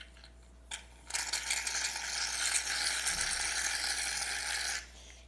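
Aerosol can of shaving foam spraying: a steady hiss of nearly four seconds that starts about a second in and cuts off near the end, after a short click.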